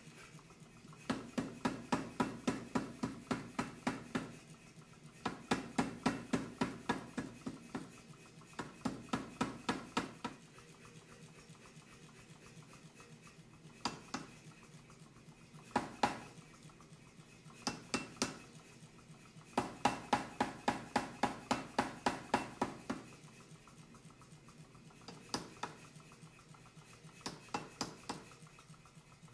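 Power hammer striking hot steel in several runs of rapid blows, about five a second, with a few single blows in between. The ram strikes the bar on the bottom die and a handheld top tool held on the bar.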